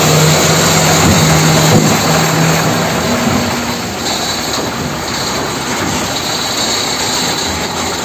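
An engine running steadily, with a humming note for the first three seconds or so before it eases a little quieter.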